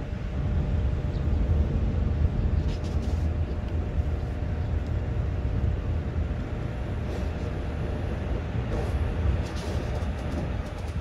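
Steady low rumbling outdoor noise with a few faint high clicks.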